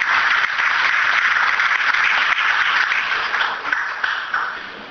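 Audience applauding, with dense clapping that dies down near the end.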